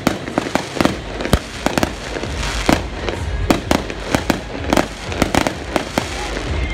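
Aerial fireworks going off in quick succession: an irregular run of sharp bangs, several a second, over a continuous noisy background.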